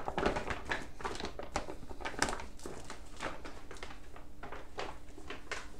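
Irregular small clicks and light rustling close to the microphone, with a faint steady hum underneath.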